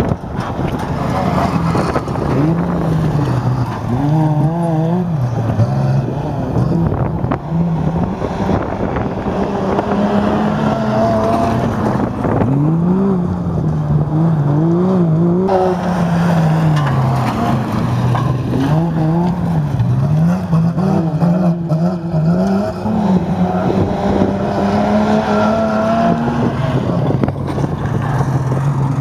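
Engines of GAZ-51 race trucks revving hard, their pitch climbing and dropping again and again as they accelerate and lift around the course, with more than one engine heard at once.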